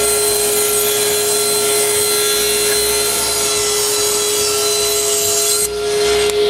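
Power saw cutting through glued-up plywood strips to straighten their sides: a steady motor tone with dense cutting noise that stops about five and a half seconds in as the cut ends, the motor still running.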